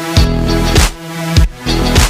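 Background music with a steady beat: a deep kick drum about every 0.6 seconds over held chords.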